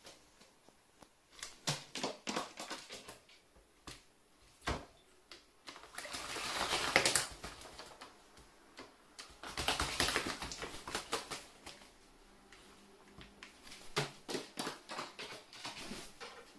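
Carrion crow bathing in a plastic bucket of water, with two bouts of splashing about six and ten seconds in. Scattered sharp taps and clicks fall between them.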